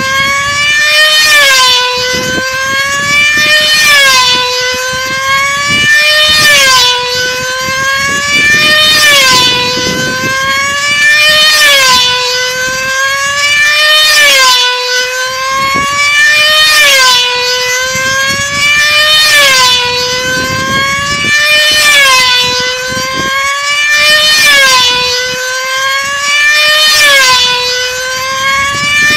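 Control-line combat model aircraft's tiny 2.5 cc two-stroke engine running flat out at a high, buzzing pitch. The pitch rises and falls about every two and a half seconds as the plane circles the pilot, each rise and fall marking one lap.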